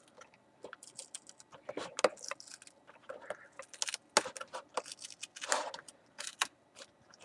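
Plastic laptop screen bezel being pried off by hand: irregular light clicks and crackles, with a few sharper snaps, as its clips and adhesive let go.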